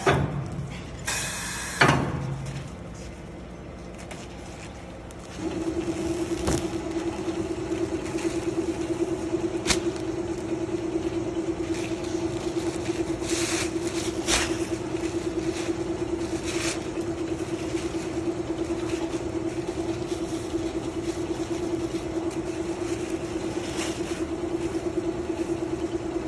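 ZR-N600 disposable-cape making machine starting up about five seconds in and then running with a steady, fluttering hum, with a few sharp clicks now and then. A few louder clicks and knocks come near the start, before it starts up.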